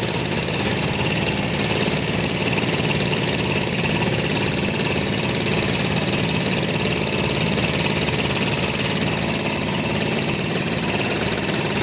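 Steady mechanical drone of a passenger train standing at the platform, running evenly with a low engine-like hum.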